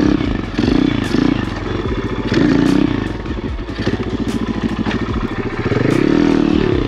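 Apollo RFZ 125cc dirt bike's single-cylinder engine revving up and falling back several times in short bursts of throttle, the pulls of wheelie attempts. There is scattered clattering from the bike throughout.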